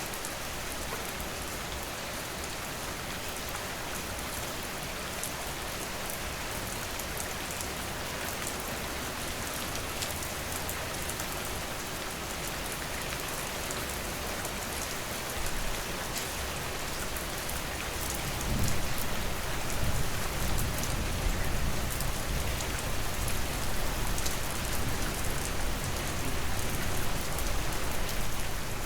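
Steady rain falling on a surface, an even hiss with scattered drop ticks. About two-thirds of the way in, a low rumble joins it and the sound grows louder, then drops back right at the end.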